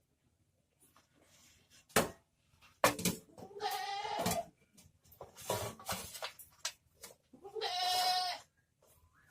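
Animal calls: wavering, drawn-out cries about a second long, the clearest about three and a half and seven and a half seconds in, after a couple of sharp knocks.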